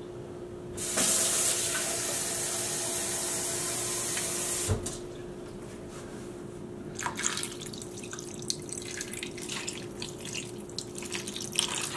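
Water running with a steady hiss for about four seconds, ending with a knock. After a short pause, water is poured from a jug and splashes irregularly into a black enamelware roasting pan of browned rabbit and salt beef.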